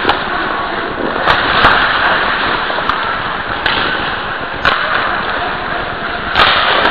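Ice hockey play heard from a camera taped to a goalie's helmet: skates scraping on the ice as a steady hiss, with several sharp clacks of sticks and puck.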